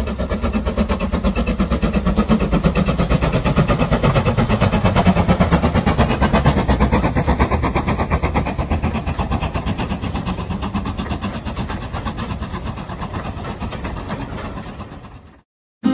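Steam train running past with a fast, even beat. It fades near the end, then cuts off suddenly.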